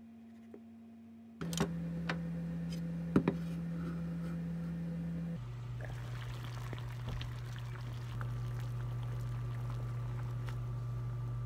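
Water boiling in a pot on an electric cooktop, with a steady low hum under it and a few sharp clinks about two and three seconds in. Before that, a single faint tap of a knife on a wooden cutting board.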